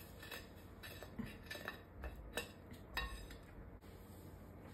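Scissors snipping the excess glued fabric from around the edge of a plate: faint, short clicks of the blades, about every half second for the first three seconds, then fewer near the end.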